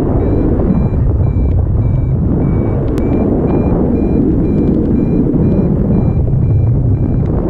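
Wind buffeting the microphone in flight under a paraglider, with a variometer beeping about twice a second, the intermittent tone that signals the glider is climbing.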